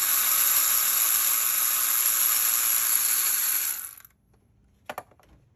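Cordless electric ratchet running steadily with a high-pitched whir for about four seconds, spinning a loosened spark plug out of the cylinder head through a long extension, then stopping. A single sharp click follows about a second later.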